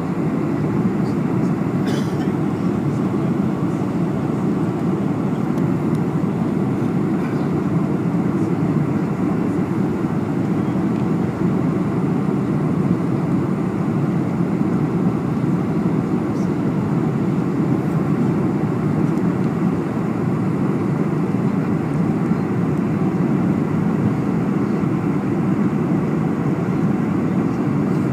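Steady noise of a jet airliner heard from inside the passenger cabin, the engines and the airflow over the fuselage during the descent on approach to landing.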